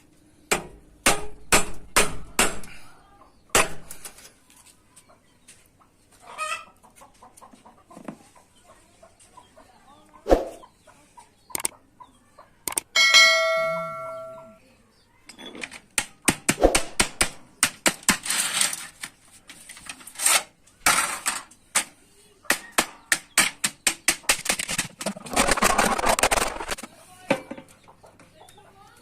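Hammer blows on a sheet-steel bread pan, irregular strikes that come in a quick cluster at the start and a dense run in the second half. Near the middle a single ringing metallic tone fades out over about a second.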